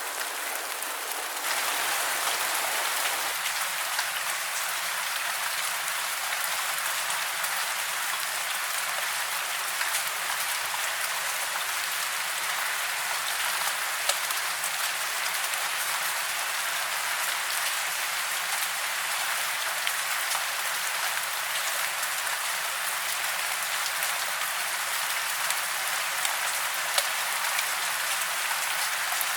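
Steady heavy rain falling, a dense hiss with scattered sharper drop ticks. It gets a little louder about a second and a half in.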